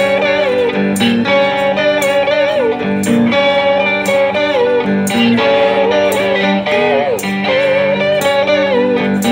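Amplified electric cigar box guitar playing a blues riff, its notes sliding and bending in pitch over held low notes, with a sharp percussive beat about once a second.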